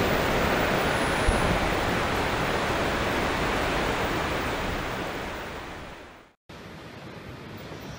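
Rushing rumble of a train receding into a tunnel, fading slowly over several seconds and then cut off abruptly about six seconds in, leaving a fainter steady hiss of wind.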